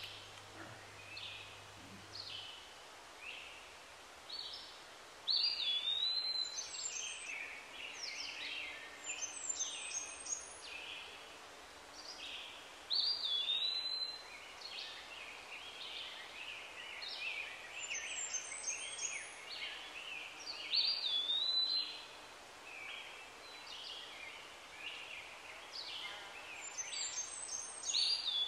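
Forest birdsong: several birds chirping and whistling, with one bird's swooping whistle recurring a few times, over a faint steady background hiss.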